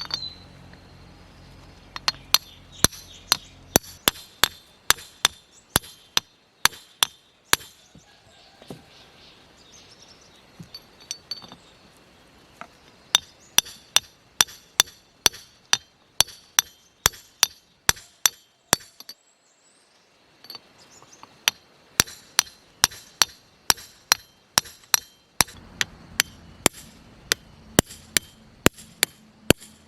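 A hammer striking metal in a steady rhythm of about two blows a second, each blow ringing. The hammering comes in three runs separated by short pauses.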